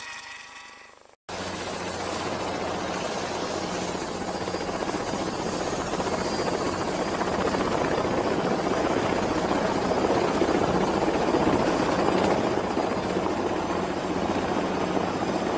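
Turbine helicopter running, a steady rush of rotor and engine noise with a thin high turbine whine that creeps slightly upward in pitch. It cuts in abruptly about a second in, after a briefly fading sound.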